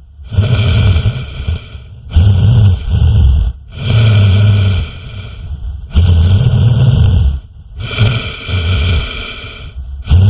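Loud snoring: about five deep, rasping snores, one every two seconds or so, each fading before the next breath.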